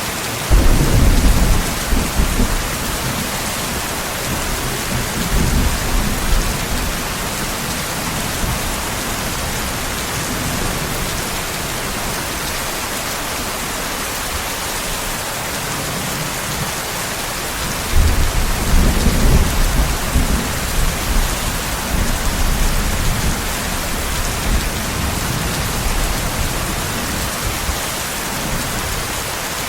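Steady heavy rain with thunder: a sudden deep clap of thunder about half a second in that rumbles on and fades over several seconds, and a second rolling rumble starting about 18 seconds in.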